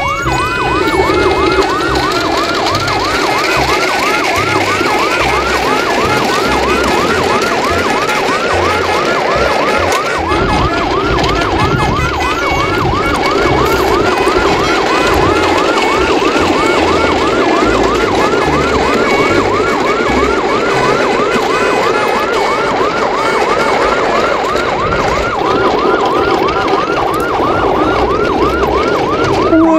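Electronic siren sounding continuously in a fast yelp, its pitch sweeping up and down a few times a second over a steady lower hum.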